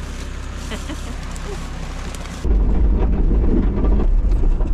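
A vehicle's engine idling with the door open. About two and a half seconds in, an abrupt change to the louder, deep rumble of the engine and tyres heard from inside the vehicle's cabin as it drives over a rough dirt track.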